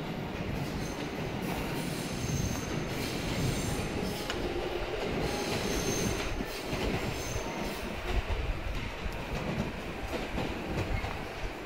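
A train running on rails, a steady low rumble with faint high wheel squeals coming and going several times.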